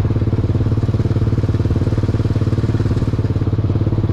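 The engine of a homemade vehicle runs steadily with a fast, even putter and a strong low hum, heard from the driver's seat.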